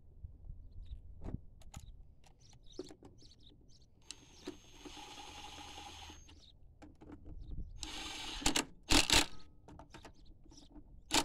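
Cordless drill with a socket on an extension running air-box nuts down onto a small engine in short runs: a steady motor whir for about two seconds about four seconds in, a shorter run near eight seconds, then loud sharp clacks around nine seconds and again at the end. Light clicks of the nuts being threaded by hand before that.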